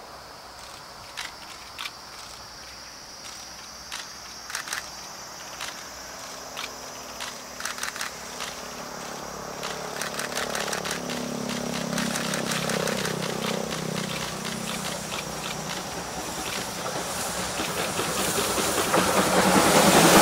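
C58 steam locomotive approaching at speed and passing close by. Its exhaust beats sound sharply, coming faster and louder as it nears, over a rising running rumble. Near the end the sound swells into the loud rush of the locomotive and coaches going past.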